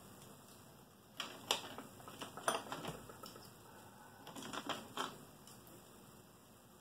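Steel sockets clinking against each other as hands sort through a toolbox socket tray, in three short bunches of light clicks.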